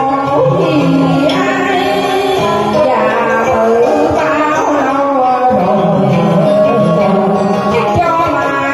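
A woman singing a Vietnamese tân cổ song into a microphone over a karaoke backing track, her voice gliding and ornamenting the melody.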